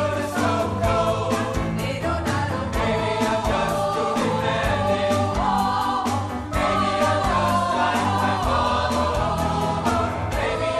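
Large mixed pop choir singing in several parts, backed by a live bass and drum kit keeping a steady beat.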